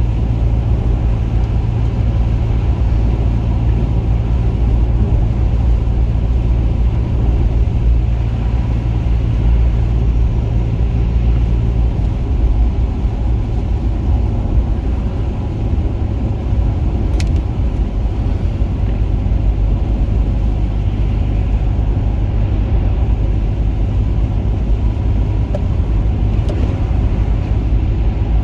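Steady low rumble of a car running, with one sharp click about seventeen seconds in.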